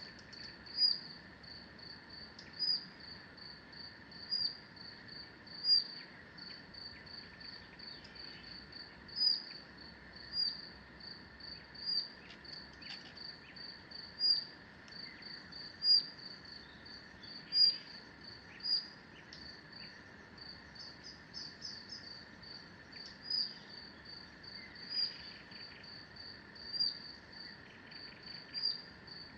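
Forest ambience led by crickets chirping in a steady high pulse, about four chirps a second, with louder chirps every second or two over a steady high insect drone. A few faint bird calls sound here and there.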